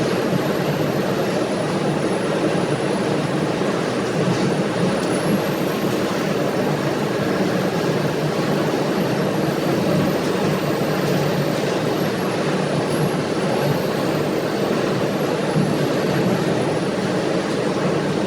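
Steady machinery noise from aluminum melting and iron-removal equipment running, with a faint high whine that slowly rises and falls in pitch.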